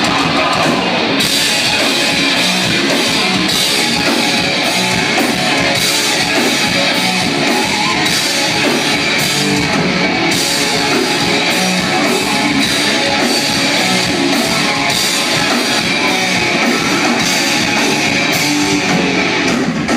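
Metal band playing live and loud: heavily distorted electric guitars over a drum kit.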